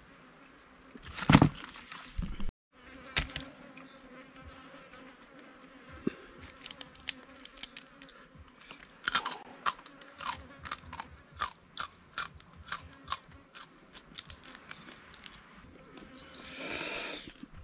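Cooked crayfish shells cracked and pulled apart by hand, with crunchy chewing, as a run of sharp clicks and cracks that is loudest at the start and thickest midway. An insect buzzes faintly underneath.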